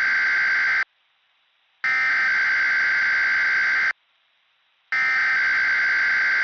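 Weather radio SAME alert header: three bursts of harsh digital data tones, each about two seconds long with a second's gap between. The first ends just under a second in, the second starts about two seconds in, and the third about five seconds in. It is the coded header that opens a required weekly test broadcast.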